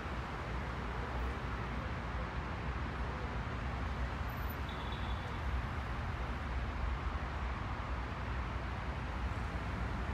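Steady low rumble of a distant Falcon 9 rocket launch, with no breaks or sudden changes.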